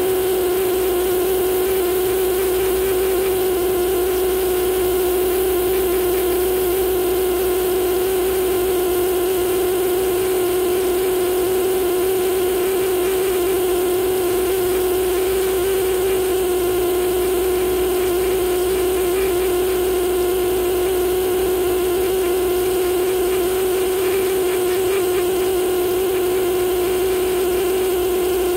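Pneumatic air scribe buzzing at a steady, unchanging pitch as its needle tip chips rock matrix away from fossil fish teeth.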